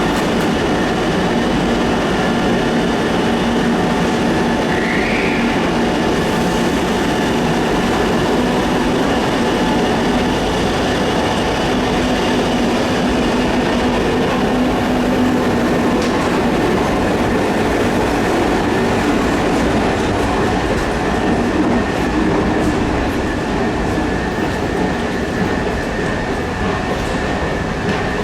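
Electric passenger train moving through a station: steady wheel-on-rail running noise with a continuous whine of several steady tones, and a short rising whine about five seconds in.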